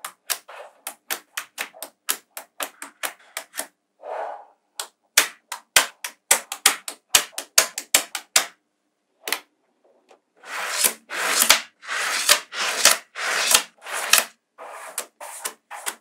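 Small metal magnetic balls snapping together in quick, sharp clicks as strips of balls are set against a panel of them. After a pause of near silence about halfway, longer clattering stretches follow as handfuls of balls rattle against one another.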